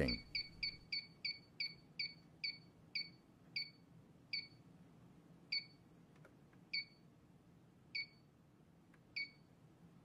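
Inficon GasMate handheld combustible gas leak detector beeping: short, clipped beeps that start quick, about four a second, and slow down steadily to about one a second.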